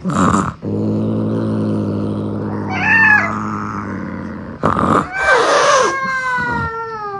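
Domestic cats hissing and meowing: a short hiss at the start and another about four and a half seconds in, a brief rising-and-falling meow near three seconds, and a drawn-out call that bends and then slowly falls in pitch near the end, all over a steady low hum.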